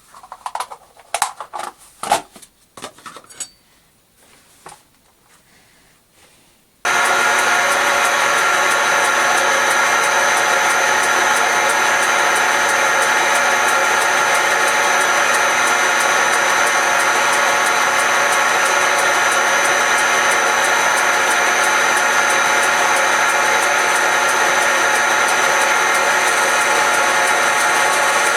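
A few scattered clicks and knocks, then about seven seconds in a Smart and Brown Model L metal lathe is suddenly running, a loud, steady hum made of many even tones from its motor and gearing.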